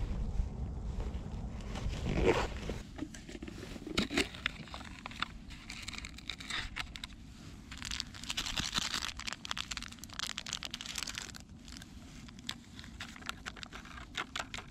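Wind on the microphone and a couple of knocks at first, then a small plastic seasoning sachet for an instant cup noodle crinkling and tearing as it is opened and shaken out, with many small crackles.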